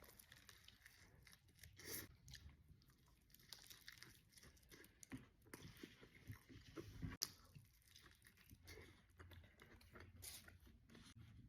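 A person chewing food with the mouth close to the microphone: quiet, irregular wet smacks and soft crunches, with a few sharper bites about 2, 7 and 10 seconds in.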